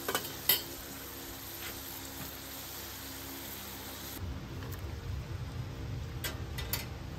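Potato wedges frying in hot oil in a cast iron skillet: a steady sizzle, with a couple of clicks near the start. About four seconds in, the sizzle falls away suddenly and a low rumble takes over, with a few light clicks near the end.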